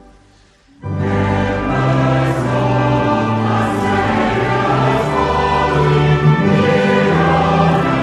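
A choir singing a hymn with sustained instrumental accompaniment. One verse ends and the next begins after a short pause about a second in.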